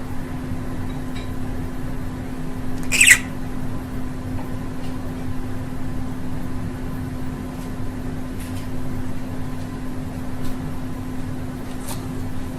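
Budgerigar giving sparse short, high chirps, one much louder about three seconds in, over a steady low hum.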